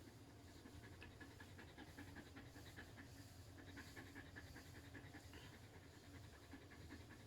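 Greyhound panting fast and faintly: stress panting, a sign of her fear of the fireworks.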